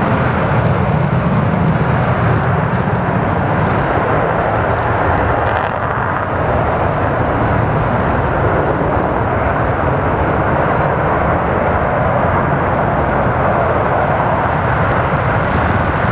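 Jet noise from an F/A-18E Super Hornet's two turbofan engines during takeoff: a loud, steady roar with no breaks.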